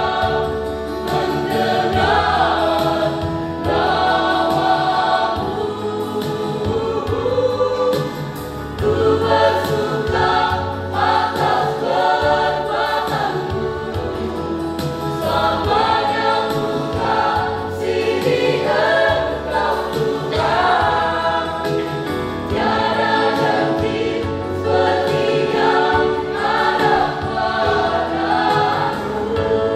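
A mixed youth choir singing a gospel hymn in harmony, with steady low bass notes underneath.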